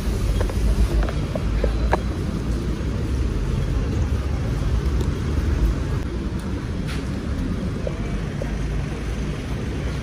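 Outdoor city street ambience with a steady heavy low rumble and a few faint clicks.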